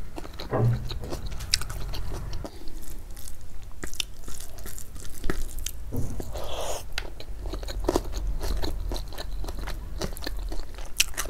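A person chewing a mouthful of rice and crunchy side dishes, with many short crunches and wet mouth clicks.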